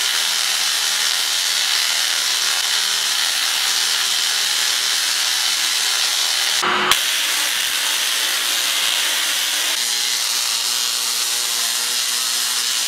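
Spark-gap Tesla coil firing, throwing sparks into the air with a loud, steady hissing buzz. A short break with a click comes about seven seconds in.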